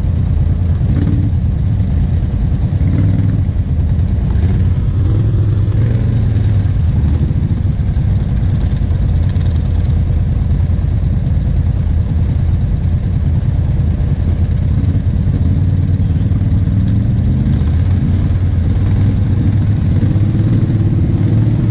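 Kawasaki KVF 750 Brute Force ATV's V-twin engine running steadily at low revs while the quad moves slowly, with a few gentle rises in pitch as the throttle opens, the clearest near the end.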